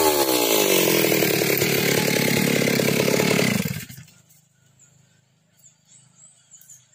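Stihl two-stroke chainsaw engine dropping from a rev to a low, even running pulse, then shut off, stopping abruptly about four seconds in. Faint high chirps follow.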